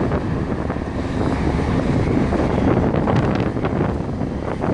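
Wind buffeting the microphone on the deck of a moving ship, with the wash of its wake waves breaking on the canal bank; a few short crackles about three seconds in.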